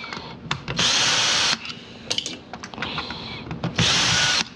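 Power drill-driver running in short bursts with a high motor whine: once about a second in, briefly and more faintly near three seconds, and again near four seconds, with small handling clicks between.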